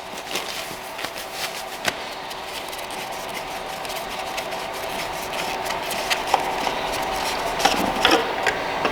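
Ratchet clicking in irregular runs as the old oil filter housing cap is worked loose, over a steady hum, with a cluster of louder clicks near the end.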